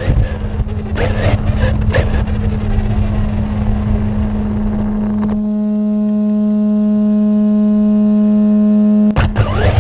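Fast electric RC car running, its motor whine rising and falling over tyre noise, under a steady low hum. About halfway in the car noise drops away, leaving a single held horn-like tone that grows louder and cuts off suddenly near the end.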